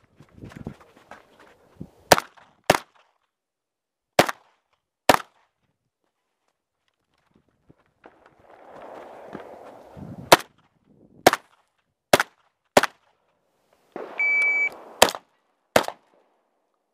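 Shotgun fired about ten times, mostly in pairs half a second to a second apart, with a pause of several seconds in the middle where only rustling is heard. A short high beep sounds about fourteen seconds in.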